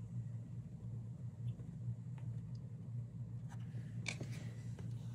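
Tarot cards being handled, a few soft taps and scrapes mostly in the second half, over a steady low electrical hum.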